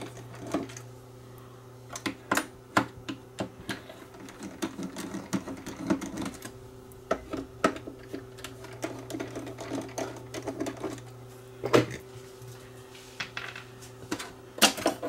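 Screws being worked out of a reel-to-reel tape deck's metal front panel with a screwdriver: scattered small metallic clicks and taps, with two louder knocks, one about 12 seconds in and one near the end, all over a steady low hum.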